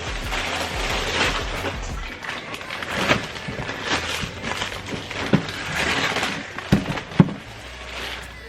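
Plastic-wrapped frozen food being handled: crinkling plastic with several sharp knocks and thuds, the loudest near the end.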